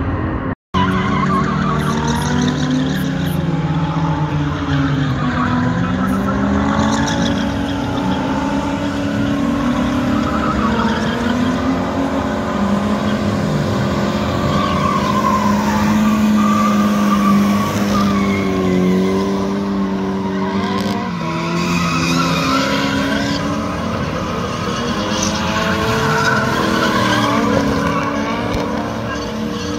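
Several drift cars running hard on a track, their engines revving up and down in overlapping pitches while tyres squeal through slides. A brief gap of silence about half a second in.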